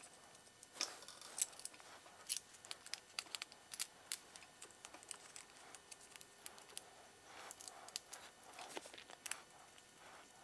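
Faint, irregular clicks and small taps of hands working a power cord into a plastic current-sensor housing and turning its screws with a screwdriver.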